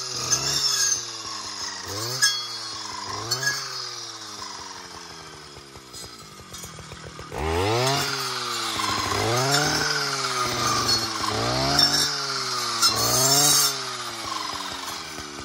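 Stihl FS 560 C brush cutter's two-stroke engine with a carbide circular saw blade, cutting brush and young tree trunks, its revs climbing and dropping back again and again. The engine runs lower for a few seconds, climbs sharply about halfway through, then rises and falls roughly once a second.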